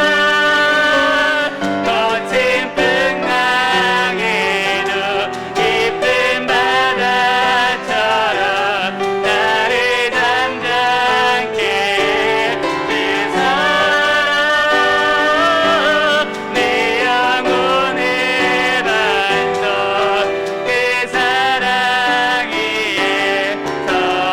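Worship team singing a praise song with piano accompaniment, voices held in long, wavering notes over sustained chords.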